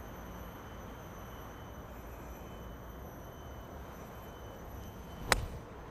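Lob wedge striking a golf ball: one sharp, short click about five seconds in, over a faint steady background hum.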